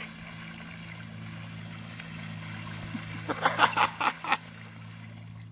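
Splashing in a muddy puddle as a toddler falls into the water, a quick run of splashes about three and a half seconds in, over a steady low hum.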